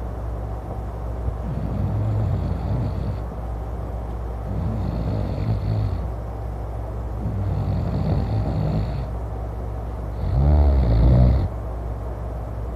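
A man snoring loudly in his sleep: four snores, one about every two and a half to three seconds, the last one the loudest.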